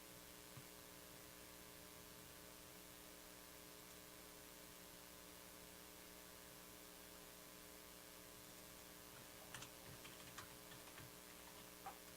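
Near silence: a steady low electrical hum, with a few faint clicks near the end.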